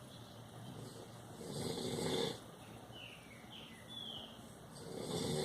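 A sleeping pet snoring: two snores, each about a second long, one about a second and a half in and one near the end, with faint chirps between them.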